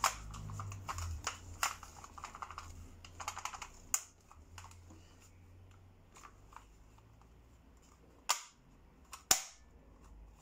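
Toy gel blaster being handled and worked, making small plastic clicks and rattles. There is a busy run of clicks in the first few seconds, then two sharp snaps about a second apart near the end.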